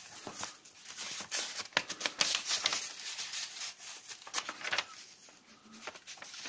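Pages of an old paper instruction booklet being turned and leafed through by hand: dry rustling with quick paper flicks, busiest in the middle.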